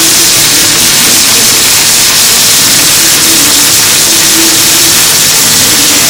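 Welding arc from a Panasonic VR-006 robot's water-cooled torch, a loud, steady hiss, with short hums from the robot's motors coming and going.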